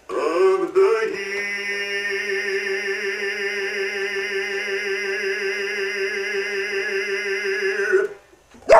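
A singing voice holds one long note with a steady vibrato for about seven seconds over music, and cuts off suddenly about eight seconds in; a brief sliding vocal sound follows near the end.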